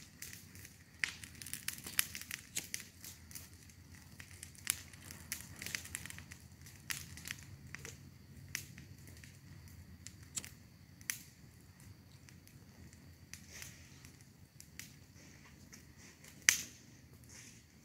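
Irregular sharp clicks and crackles, scattered every fraction of a second to a second, with one louder crack near the end.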